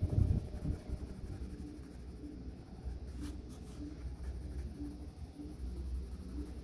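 Orange neon coloured pencil scratching on paper in short back-and-forth strokes while shading in a circle, with a soft bump in the first second.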